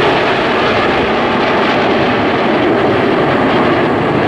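A formation of BAE Hawk T1 jet trainers flying past, with a loud, steady jet-engine noise.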